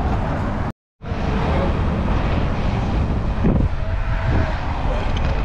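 Wind rushing over the microphone of a camera on a moving bicycle, a steady low rumble, broken by a short dropout to silence just under a second in.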